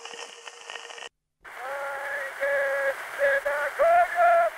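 Old 1936 field recording of a Seto folk choir. The first second is hiss and crackle with a faint steady hum. After a brief dead gap just past a second in, the choir sings long held notes, thin and muffled as an early recording sounds.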